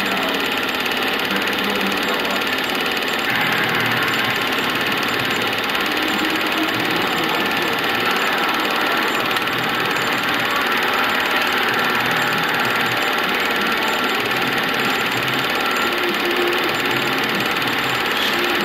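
Film projector running steadily, a continuous mechanical whirr.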